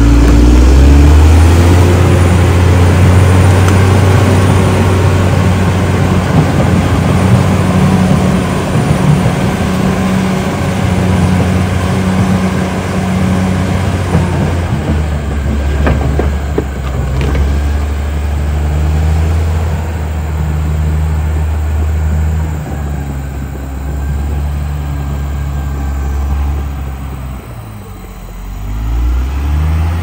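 Caterpillar D6R XL bulldozer's diesel engine running under load while dozing soil: a steady low drone whose pitch shifts a little, with a few sharp clanks about halfway through. Near the end the engine drops in pitch and then comes back up.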